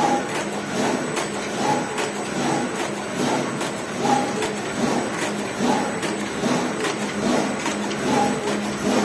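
Plastic film roll-to-sheet cutting machine running, with a short mechanical stroke repeating a little faster than once a second over a steady machine hum as it cuts the film into sheets.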